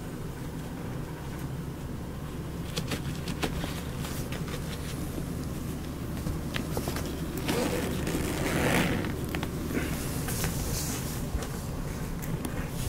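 Cats moving on carpet around a fabric mesh pet carrier: scattered light clicks, scrapes and rustles of paws against the fabric, with a louder rustle past the middle, over a steady low hum.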